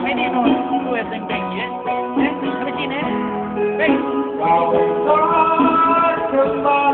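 Live music led by guitar, played through a rented PA sound system.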